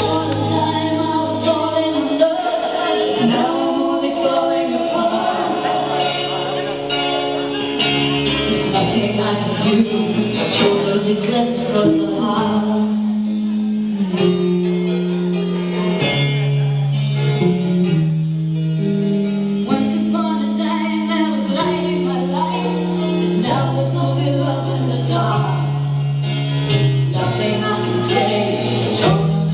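Music with singing: a slow song with long held bass notes under a continuous vocal line.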